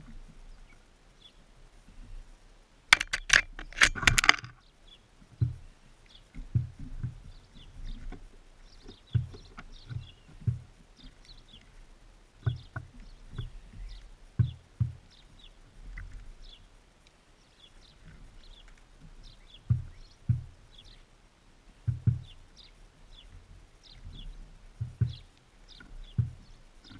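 Small wild birds feeding at a seed feeder right beside the microphone: a burst of loud rapid clattering about three seconds in, then soft irregular knocks as they peck and hop on the feeder, with faint short high chirps throughout.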